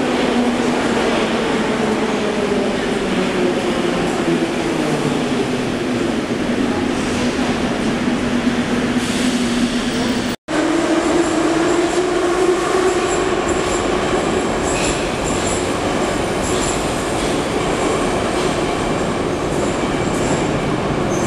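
Moscow Metro train braking into the station, its traction-motor whine falling steadily in pitch over the rolling roar of the wheels. After a brief break the train pulls away, the whine rising as it speeds up and then fading.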